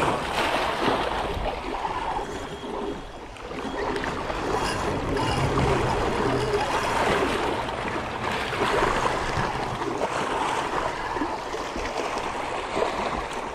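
Small waves splashing and lapping against rocks at the water's edge, rising and falling in level.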